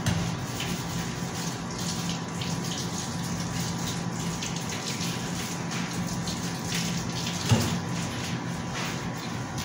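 Running water, steady, over a low background hum, with one short knock about seven and a half seconds in.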